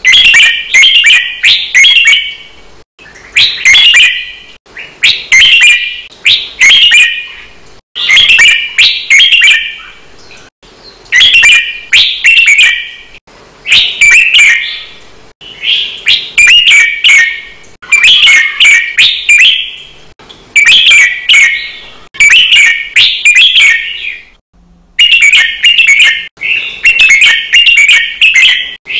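Red-whiskered bulbul singing: short, bright, quick phrases repeated one after another, about one every second or two, with a brief pause about 24 seconds in. This is the doubled, fast-delivered phrase song used as a training recording for competition bulbuls.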